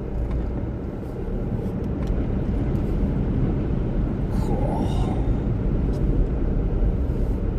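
Car driving through deep standing floodwater: a steady low rumble of engine and water against the car.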